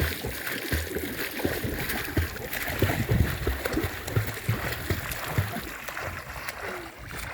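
Pool water splashing and sloshing with irregular low thuds as a person swims.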